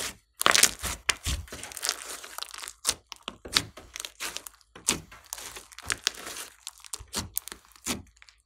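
A large mass of thick, glossy slime being squeezed and stretched by hand, giving an irregular run of wet clicks, pops and crackles as trapped air bubbles burst.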